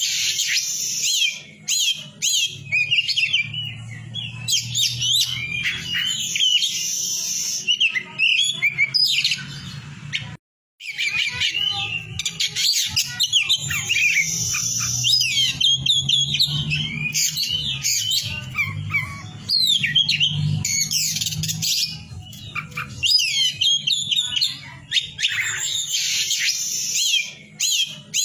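Oriental magpie-robin (kacer poci) singing, a continuous run of fast whistled phrases and chirps. The sound drops out completely for a moment about ten seconds in, and a low steady hum runs underneath.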